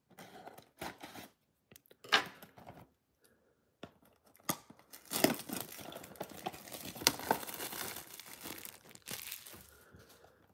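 Clear plastic shrink wrap being torn and peeled off a trading-card blaster box: scattered rips and crinkles at first, then a denser run of crackling from about five seconds in that tapers off near the end.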